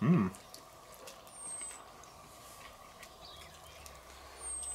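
A man's brief voiced "hm" right at the start, then quiet eating sounds with faint small clicks as he bites meat off a barbecued rib. A high, thin chirp falls briefly in pitch twice, and a faint low hum comes in past the middle.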